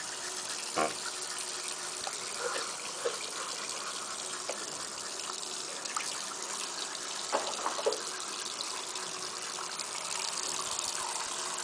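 Water running steadily from a tap into a washbasin, with a few short vocal sounds from a young child.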